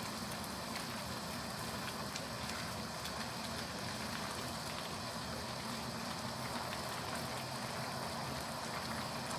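Vegetable curry in coconut milk simmering in a wok over a gas flame: a steady bubbling hiss with faint crackles, and a spatula stirring through it now and then.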